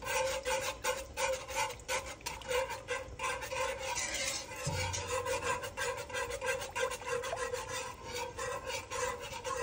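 Wire whisk scraping and swishing around a speckled nonstick pan of creamy Alfredo sauce in quick, regular strokes, keeping the sauce moving as it heats toward a boil.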